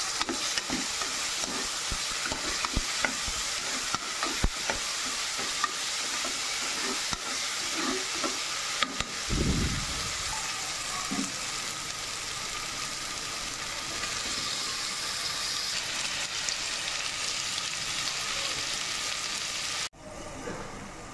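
Sliced onions, green chillies and ginger-garlic paste sizzling in oil in a pressure cooker pot, with a ladle scraping and clicking against the pot as it stirs, and a dull knock about nine seconds in. The sizzling cuts off suddenly near the end.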